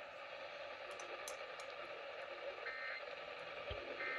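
Radio hiss with two short warbling data bursts, about a second and a third apart, in the second half. They are the Emergency Alert System end-of-message (EOM) code sent over the air to close a required monthly test.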